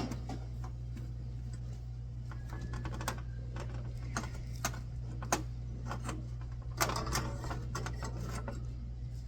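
Scattered light clicks and taps from tools and cable being handled during soldering work, over a steady low hum.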